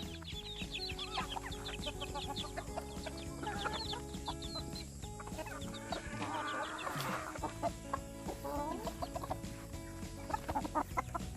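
Chickens clucking with a stream of quick, high chick peeps, and a louder squawk a little past the middle, over background music.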